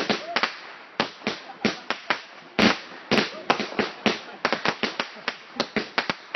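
Fireworks going off in a rapid, irregular string of sharp bangs, about four a second, with a loud double bang near the middle.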